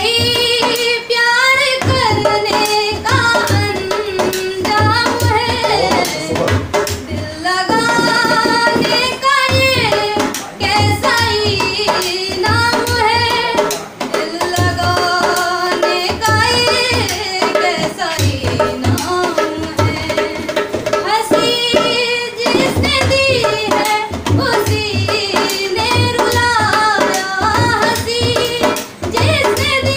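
A woman singing a Hindi song in sustained, ornamented phrases, accompanied by a dholak's steady low drum strokes.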